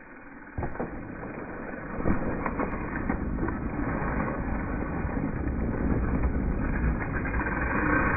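Mountain bike (Transition Patrol) tyres rolling fast over a packed-dirt trail, with a few sharp knocks and rattles from the bike in the first three seconds, under a low rumble that grows steadily louder.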